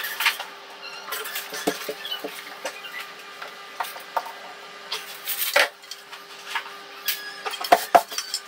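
Scattered clicks, taps and knocks of a steel tape measure and a spirit level being handled against a radiator and a wall, the sharpest knocks near the end, over a faint steady hum.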